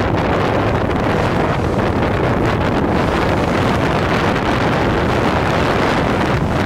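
Strong wind buffeting the microphone aboard a boat out on open lake water: a loud, steady rushing noise.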